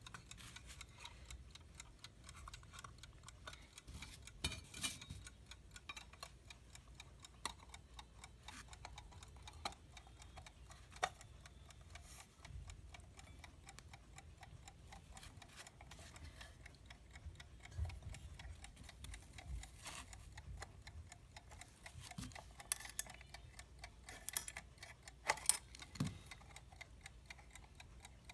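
Vintage US Time 'Waterbury' alarm clock movement running with a faint, steady ticking, broken now and then by louder clicks and taps as the clock is handled and put back together.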